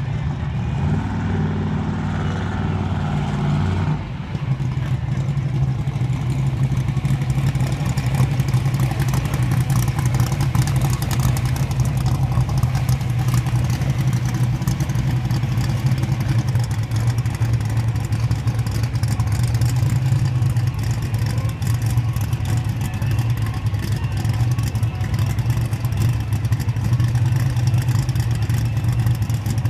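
Twin-turbo Mustang Cobra running. It holds a pitched engine note for about four seconds, changes abruptly, then gives a steady low drone for the rest.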